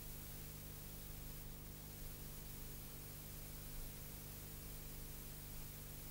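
Faint, steady hiss of an old analogue soundtrack with a low constant hum underneath. No other sound.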